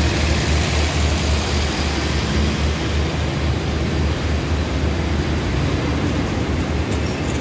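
Passenger coaches of a Thai diesel rapid train rolling slowly past along the platform: a steady low rumble of steel wheels on the rails.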